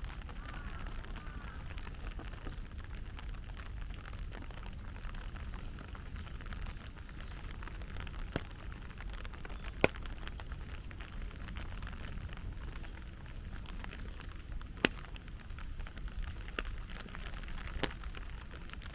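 Steady heavy rain falling, with a few sharp taps of drops, the loudest about ten seconds in and again near fifteen seconds.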